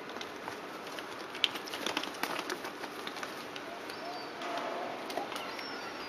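Herring gulls scuffling over bread on a flat roof: a cluster of sharp taps in the first half, then a faint call in the second half.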